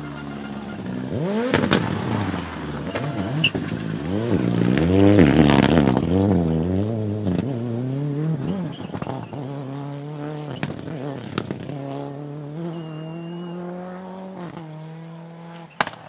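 Rally car engine revving hard up and down through quick gear changes as the car passes, loudest about five seconds in, with occasional sharp pops. The engine then settles to a steadier note, and a rapid string of sharp cracks comes right at the end.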